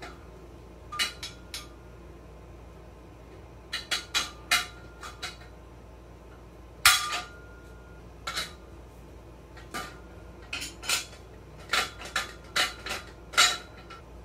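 Steel tubes and fittings of an adjustable jack post clinking and clanking as they are handled and set, a scattered series of sharp metallic knocks, some ringing briefly. The loudest clank comes about seven seconds in.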